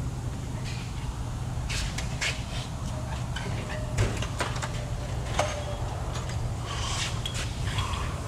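Auto repair shop background: a steady low hum with scattered light clicks and knocks, a couple of them a little louder about halfway through.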